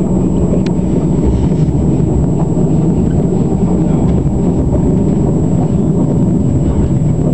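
Passenger train's running noise heard inside the carriage: a steady low rumble that holds at the same level throughout.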